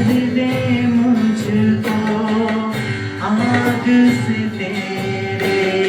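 Live worship band music: guitar and held notes over a steady drum beat, with about two cymbal or hi-hat strokes a second.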